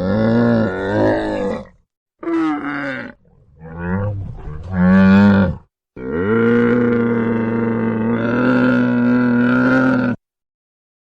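Camel calling: four loud, pitched, wavering calls, the last a long one held about four seconds before cutting off.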